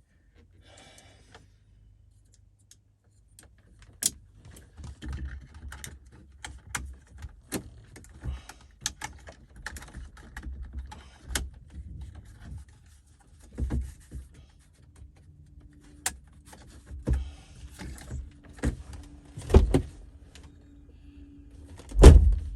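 Irregular clicks, knocks and rattles of parts being handled inside a car's cabin, with the loudest knock near the end, over a faint steady low hum.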